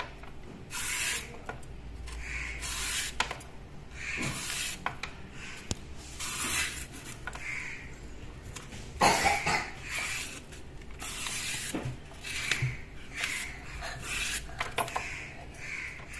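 Vegetable peeler scraping the skin off taro stalks in repeated rasping strokes, about one a second, stripping the itch-causing outer skin before the stalks are cooked.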